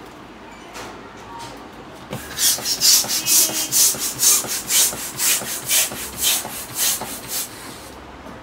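Hand balloon pump worked in quick strokes, each a rasping whoosh of air, about three a second. The strokes start about two seconds in and stop about a second before the end.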